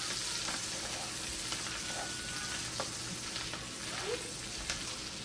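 Sausage slices sizzling as they sauté in a frying pan and are stirred with a spatula, with a few light clicks and scrapes of the spatula against the pan.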